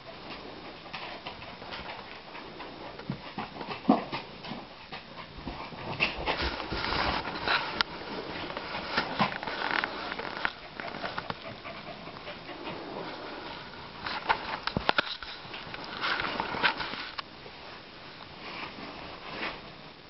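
Two dogs moving about close by, with irregular clicks and knocks. In the second half, cloth rubs over the microphone.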